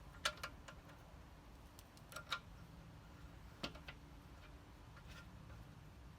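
Ratchet wrench clicking in short strokes, a pair of clicks every second or two, while tightening the motorcycle's front axle fastener.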